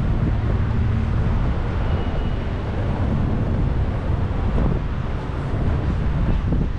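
Wind buffeting the microphone of a camera on a moving bicycle: a steady, loud, low-pitched noise.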